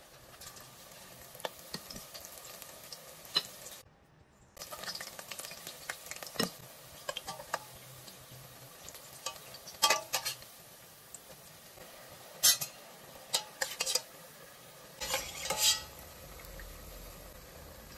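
Pakoras deep-frying in hot oil in a stainless steel pot: a steady sizzle, broken by sharp clinks and scrapes of a metal slotted spatula against the pot, loudest about two-thirds of the way through and near the end.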